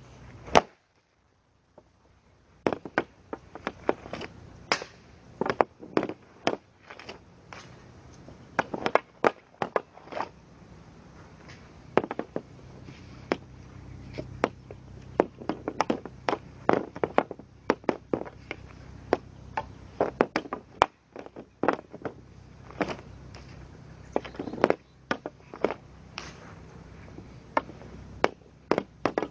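Hockey stick blade and puck clacking on a plastic shooting pad: irregular sharp clacks of stickhandling taps and shots, some in quick runs and some single. The sound cuts out completely for about a second near the start.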